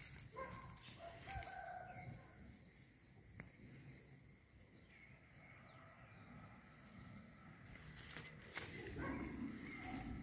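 Faint woodland ambience: birds chirping, with short whistled calls in the first couple of seconds and a thin high chirp repeating throughout. Footsteps rustle through dry leaf litter near the end.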